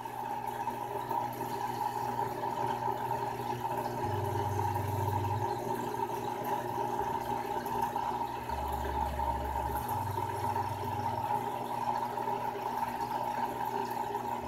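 Aquarium filtration running: a steady watery noise with a steady hum underneath.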